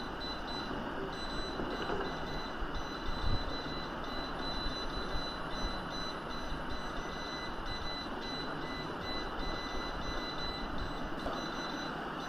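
Steady background noise with faint, high, steady tones, and a single knock about three seconds in as a tripod and laser level are handled.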